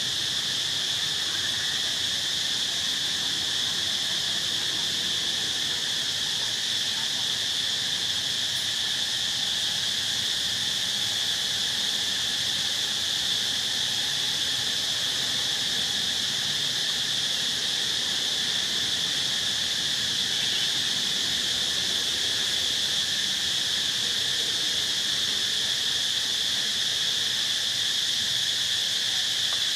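Steady chorus of insects, a continuous high-pitched drone that does not break or change.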